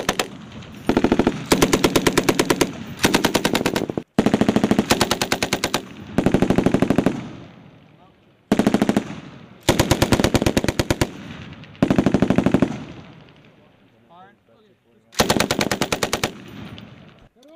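M240 7.62 mm belt-fed machine gun firing short bursts of automatic fire, about eight bursts of one to two seconds each separated by brief pauses.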